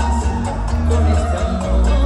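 Bachata music playing loudly with a heavy, pulsing bass beat and a sliding melody line.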